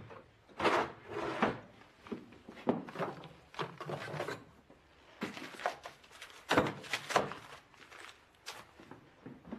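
Irregular knocks, thumps and rustles of things being pulled about on wooden shelves and a desk, the loudest about seven seconds in.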